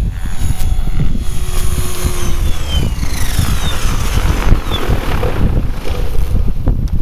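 Compass Atom 500 electric RC helicopter, powered by a Kontronik Minipyro motor, making a high-speed pass. The whine of its rotor and motor falls in pitch as it flies by around the middle, under heavy wind buffeting on the microphone.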